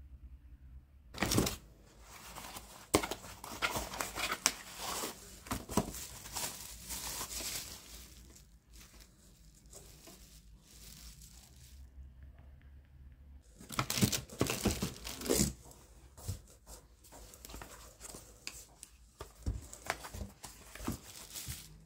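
Bubble wrap and plastic packaging crinkling and tearing as items are unwrapped from a cardboard box. It comes in two busy stretches, from about a second in to eight seconds and again around fourteen seconds, with scattered rustles and taps between.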